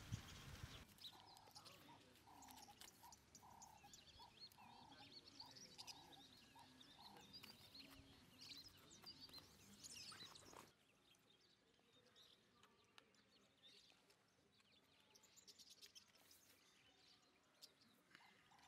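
Quiet outdoor ambience: a repeated animal call about twice a second, with birds chirping higher up. About ten seconds in it cuts off abruptly to a quieter background with only faint chirps.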